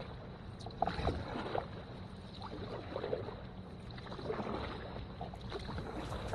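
Canoe under way: paddle strokes and water swishing along the hull, a swell of splashing roughly every one and a half to two seconds.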